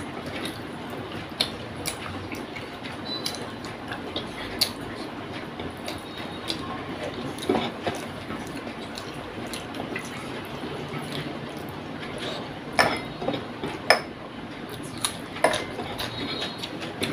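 Rice being mixed and scooped by hand on a plate, fingers working against the plate, with a handful of sharp clicks and taps scattered through, the loudest two near the end.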